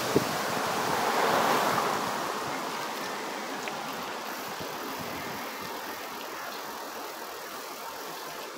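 A car passing close by on the road, its tyre and engine noise swelling about a second in and then slowly fading, over a steady rush of wind on the microphone.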